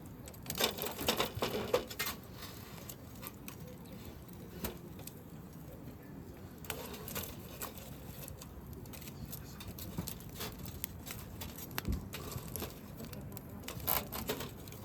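Wood campfire crackling, with irregular small pops and a cluster of louder crackles about a second in.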